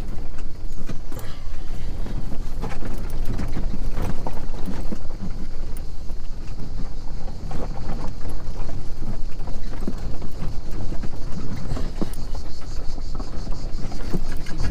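Renault Twizy electric quadricycle jolting along a rough dirt track: a steady low rumble from the tyres on the ground, with many irregular knocks and rattles from the suspension and plastic cabin.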